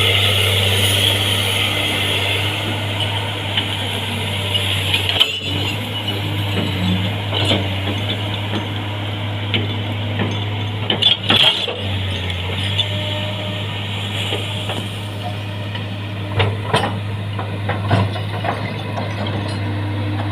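Excavator's diesel engine running with a steady low hum, with several sharp metallic clanks and knocks scattered through, from the machine working.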